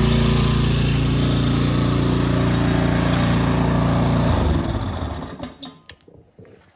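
Toro TimeMaster 30-inch mower engine running steadily at speed, with no surging after sitting for months. About four seconds in it is shut off and winds down to a stop within about a second, followed by a few light clicks.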